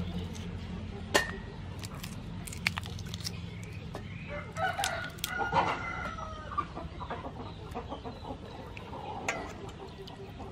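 Chickens clucking, with a rooster crowing about halfway through, over small clicks and splashes from raw shrimp being handled in a bowl of water.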